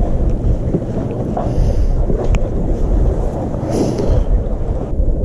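Wind buffeting the microphone in a dense, steady low rumble, mixed with the wash of the sea. There is a single sharp click about two seconds in.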